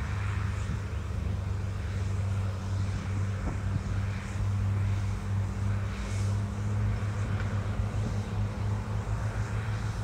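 Diesel engine of heavy earthmoving machinery running steadily with a low, even drone.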